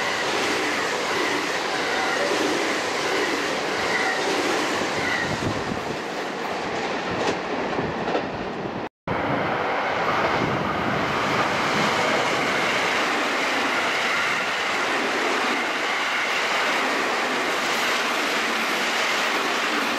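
JR Kobe Line electric trains running past the platform at speed: a steady rush of wheels on the rails. The sound drops out for an instant about nine seconds in, then a second train runs past close by.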